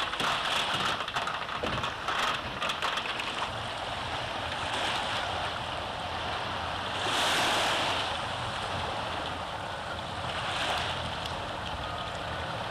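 Small waves washing onto a sandy beach, the wash swelling twice, about seven and ten seconds in, with some crackle in the first few seconds.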